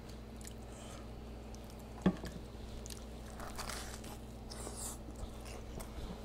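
A sharp knock about two seconds in, as a plastic squeeze bottle is set down on a wooden tray. Then a bite into a deep-fried burrito with a crust of Flamin' Hot Cheetos, crisp crunching and chewing close to the microphone.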